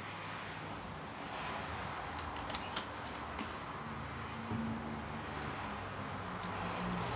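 A cricket chirping steadily in a fast, even pulse, over a steady low hiss, with a few faint clicks about two and a half to three and a half seconds in.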